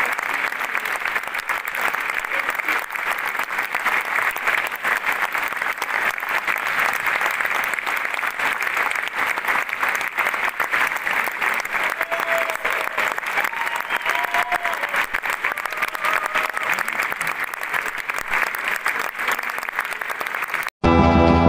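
An audience applauding, dense and steady clapping from a large crowd. Near the end it cuts off suddenly into music.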